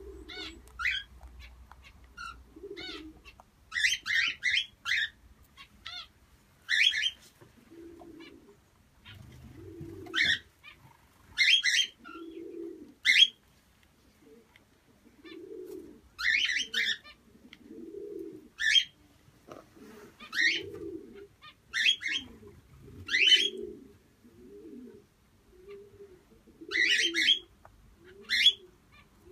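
Aviary birds calling: sharp high chirps in short bursts every second or two, with softer, lower calls between them.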